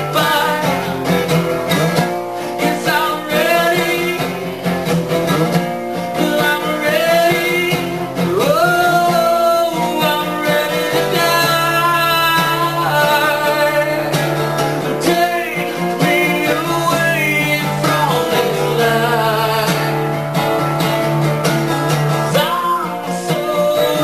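Solo acoustic song: an acoustic guitar played steadily, with a voice singing over it.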